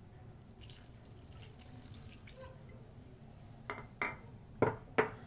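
Milk pouring faintly into a stainless steel mixing bowl of bread dough mixture, then a wooden spoon stirring it and knocking against the bowl's side four times, sharply, in the last second and a half.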